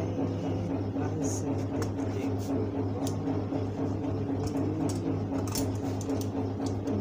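Steady low motor hum with a regular throb, under scattered light rustles and ticks of cloth being handled and pressed.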